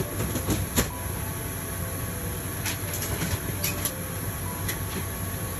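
Steady hum of an airliner's ventilation at the gate, with scattered sharp metal clinks and knocks from galley catering carts being handled. The loudest knocks come right at the start and just under a second in, with a cluster of lighter clinks about three to four seconds in.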